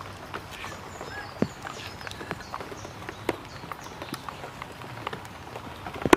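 Heavy knife cutting through fish on a wet stone slab: scattered knocks and taps of the blade against the stone, with a louder knock about a second and a half in and the sharpest one near the end.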